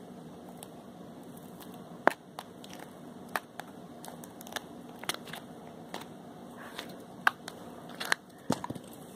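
Hands squeezing and poking slime, giving about a dozen sharp little pops and clicks at irregular moments.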